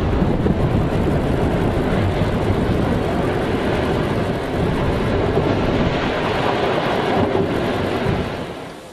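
Long, steady rumble of a cable-stayed concrete bridge collapsing in a demolition with explosives, fading away near the end.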